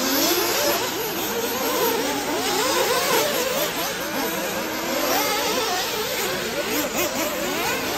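Several 1/8-scale nitro RC buggy engines racing at once, a high-pitched buzzing whose pitch keeps rising and falling as the cars accelerate and back off around the track.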